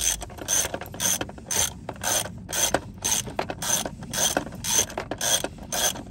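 Socket ratchet with a 27 mm socket clicking in short bursts about twice a second, each swing of the handle backing out the oil filter housing cap.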